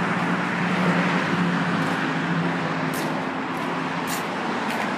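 Steady road traffic noise from a busy street, with the hum of passing car engines, strongest in the first couple of seconds.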